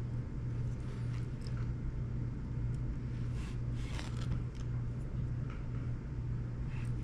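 Steady low hum with a few faint clicks and taps from small parts and a screwdriver being handled on the cassette deck's mechanism, clustered about three to four seconds in and again near the end.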